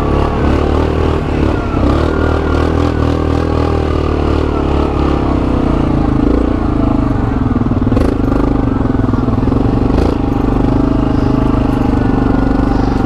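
ATV engine running steadily under way, its pitch easing a little partway through, with a couple of sharp knocks about eight and ten seconds in.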